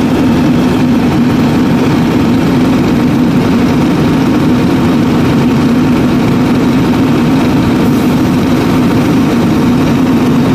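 Scania R580's V8 diesel engine held at high rpm with the throttle open, running at a steady pitch and level, heard close up at the engine bay.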